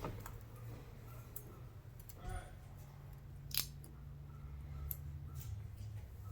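A few faint, short clicks and taps of small tools and plastic phone parts being handled, over a low steady hum.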